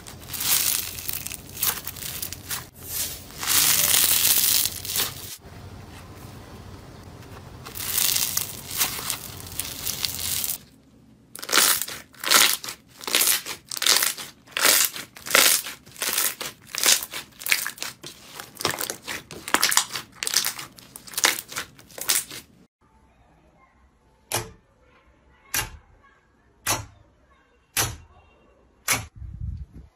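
Hands playing with slime: for about the first ten seconds a dense crackling as a porous, foam-like slime is squeezed and stretched. Then a run of short squishes, about two a second, as clear green slime is pressed. In the last seven seconds about seven sharp pops, roughly one a second, as fingertips poke into orange slime.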